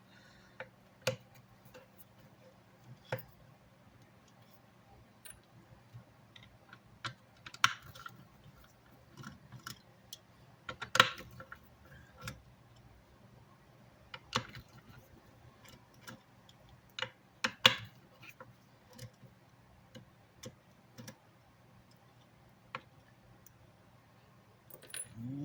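Scattered, irregular clicks and light knocks of hands and tools on a Stetsom EX3000 EQ car amplifier's case as it is taken apart. Two sharper knocks stand out, about 11 and 17 seconds in.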